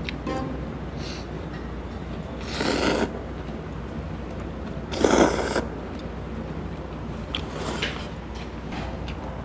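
Cold naengmyeon noodles being slurped up from a metal bowl: two long, loud slurps, the first about two and a half seconds in and the louder one about five seconds in, with a few faint clicks in between.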